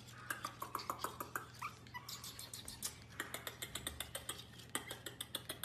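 A small Pomeranian puppy gives a few short, high whimpers and squeaks, one rising, in the first two seconds. Under them runs a fast series of sharp clicks and taps, several a second, over a steady low hum.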